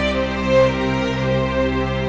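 Slow, sad-sounding music with long held notes, a soft swell about half a second in.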